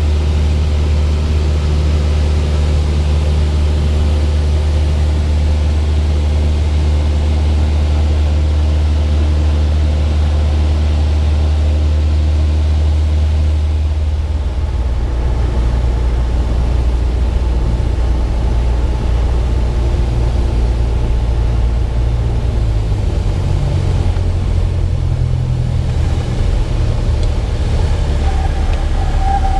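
Aircraft engine drone, loud and steady. Its low pitch shifts about halfway through, and a higher whine comes in near the end.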